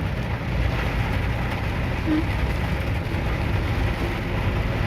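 Steady noise of a car driving in heavy rain: rain on the car and tyres on the wet road, over a low engine rumble.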